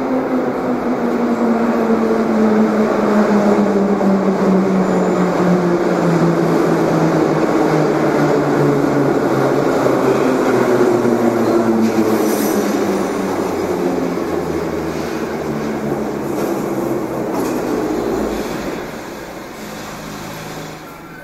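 Metro train of the 81-717 type arriving and braking to a stop. The traction-motor whine falls steadily in pitch under the rumble of wheels on rail, with a brief high squeal about 12 seconds in. The sound drops away as the train halts near the end.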